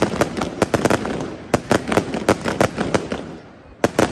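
Fireworks going off: a rapid, irregular volley of sharp bangs and crackles that thins out about three seconds in, with a few loud bangs near the end.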